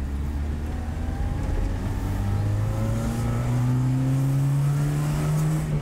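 1983 Toyota Corolla KE70's 1.3-litre single-cam engine pulling the car away in gear, its pitch rising steadily for several seconds, then falling away right at the end as the revs drop.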